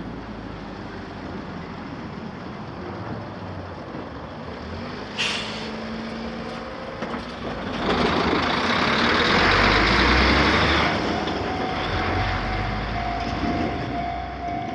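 Road traffic at a railway level crossing: a vehicle passes loudly about eight to eleven seconds in, after a sharp click about five seconds in. About eleven seconds in, a steady electronic tone starts and holds, typical of the crossing's warning bell beginning to sound.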